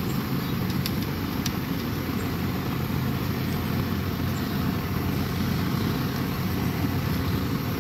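Gas burner under a large stockpot of water running steadily, a constant rushing noise with a strong low rumble. A couple of faint ticks come about a second in.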